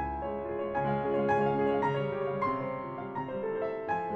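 Soft background piano music, gentle notes played in a slow, flowing line.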